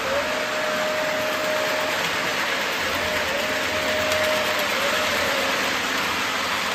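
Model trains running at speed on the layout track: a steady rumbling hiss of wheels and motors on the rails, with a single high tone that rises in, holds for a second or two and falls away, twice.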